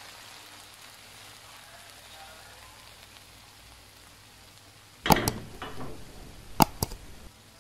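Faint steady sizzle from the stir-fry in the pan, then two pairs of sharp mouse-click sound effects from a subscribe-button animation: the first about five seconds in and the second about a second and a half later.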